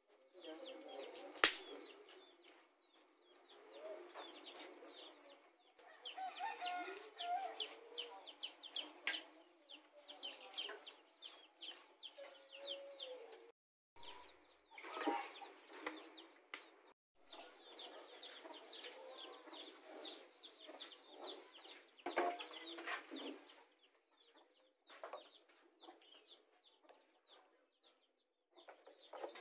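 Chickens clucking on and off, with one sharp click about one and a half seconds in.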